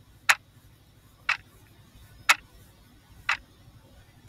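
Clock-tick sound effect, one sharp tick about every second, counting down the time allowed to answer a quiz question.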